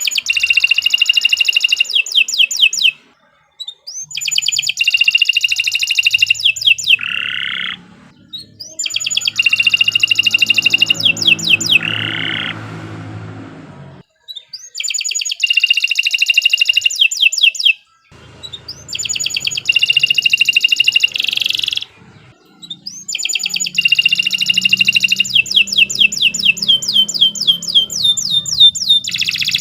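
Domestic canary singing in long phrases of fast, rolling trills, six phrases separated by short pauses. A faint low hum runs underneath in places.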